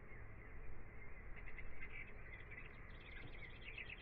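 Birds chirping in quick repeated trills, in two bursts starting about a second and a half in and again near the end, over a low steady rumble.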